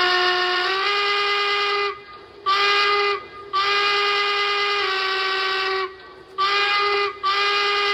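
Very high-pitched single-chime steam whistle from the onboard sound system of a Lionel Legacy brass hybrid 4-4-0 model locomotive (Union Pacific 119), blown in five blasts: long, short, long, then two short ones close together. The pitch steps up slightly about a second into the first blast.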